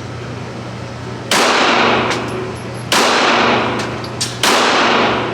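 Three single gunshots about a second and a half apart, each followed by a long echoing decay.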